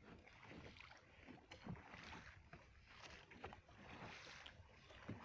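Near silence: faint water noise with a few light, irregular knocks around a small fishing boat.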